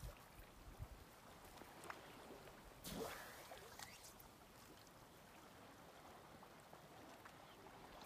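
Near silence: the faint flow of river water, with one brief swish about three seconds in.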